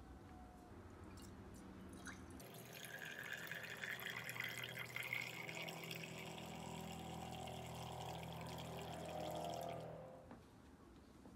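Brewed coffee poured from a glass Chemex into a small glass carafe: a steady stream splashing into the coffee already in the carafe, starting a couple of seconds in and stopping near the end.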